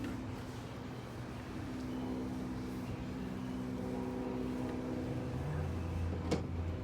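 A vehicle engine running steadily, with one sharp click about six seconds in.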